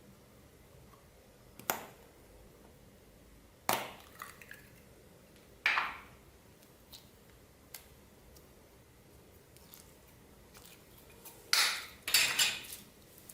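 Clear slime being squished and pressed by hand, giving short crackling pops every couple of seconds, with the loudest two close together near the end.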